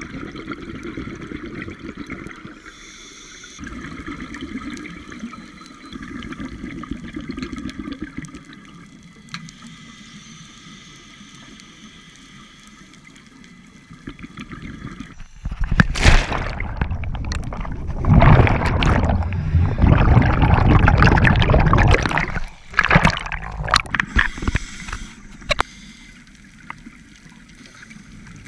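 Underwater sound of scuba diving heard through a camera housing: exhaled bubbles from a diver's regulator gurgling past the microphone, with a loud run of bubble bursts about halfway through. A faint steady tone sits underneath the water noise in the first half.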